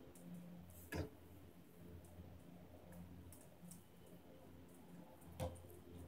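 Near silence with a faint steady low hum, broken by two short faint clicks about four and a half seconds apart.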